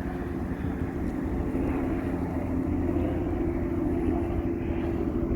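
Steady low hum of a running vehicle engine, with a constant droning tone.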